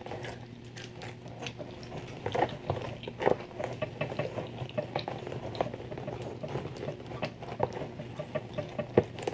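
Close-miked gum chewing: soft, irregular wet clicks and crackles, mixed with the rustle of fingers working through tangled hair near the microphone.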